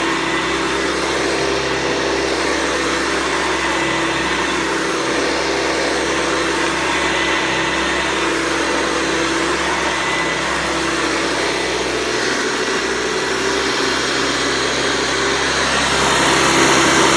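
Hoover Convertible 707 upright vacuum cleaner running steadily, its motor and metal fan giving a constant hum over a rushing hiss of air, a little louder near the end.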